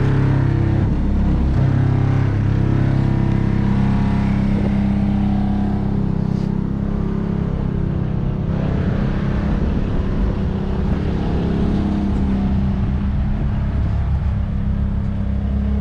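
Turbocharged KA24DE four-cylinder engine of a Nissan 240SX S13 running with a steady drone. Its pitch shifts slightly about a second and a half in.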